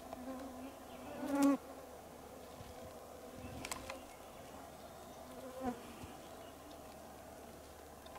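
Flying insects buzzing near the microphone, one passing close and loud about a second and a half in and again briefly just before six seconds in.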